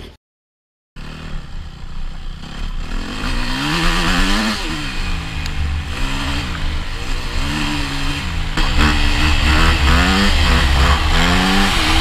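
Yamaha YZ250F single-cylinder four-stroke dirt-bike engine under hard acceleration, revving up and dropping back several times as the rider shifts through the gears. The sound cuts out completely for a moment just after the start.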